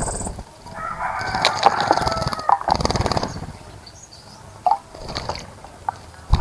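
A rooster crowing once: one drawn-out call lasting nearly two seconds, starting about a second in, with scattered short clicks and knocks around it.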